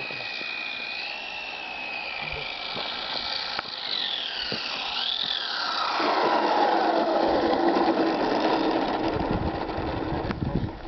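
Whine of an RC model Cessna's MIG 600 electric motor and propeller in flight. The high, wavering whine swoops about four seconds in, then slides steadily down in pitch and grows louder from about six seconds in.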